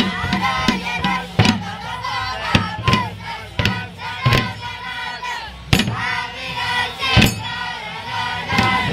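A crowd of voices chanting and singing together, with sharp percussion strikes landing about once every half-second to second.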